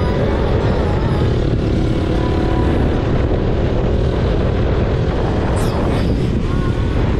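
Motorcycle riding at speed: a steady, loud rush of wind buffeting the camera's microphone over the bike's running engine.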